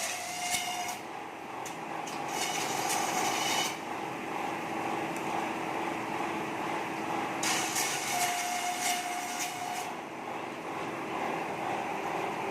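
An 11 HP single-phase satay-skewer slicer-planer machine running with a steady hum. Three stretches of harsher cutting noise come as stock passes through the blades: during the first second, from about two to four seconds in, and from about seven and a half to ten seconds in.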